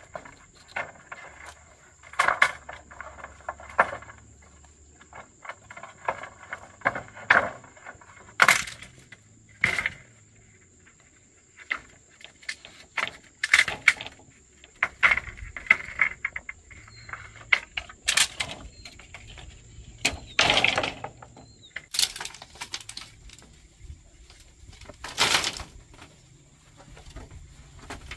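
About a dozen sharp knocks and cracks at irregular intervals, a second or several apart, a few drawn out like something splitting, with rustling and scraping between them. Behind them runs a steady high insect drone.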